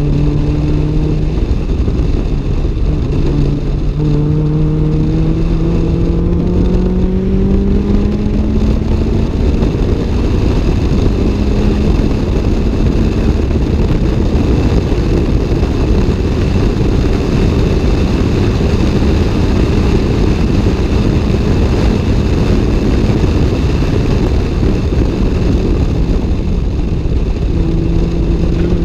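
Toyota AE86 Levin's 4A-GE twin-cam four-cylinder engine under hard acceleration, heard from inside the cabin: the revs climb and step through upshifts over the first ten seconds, then hold high at speed with heavy road and wind noise. The revs drop near the end.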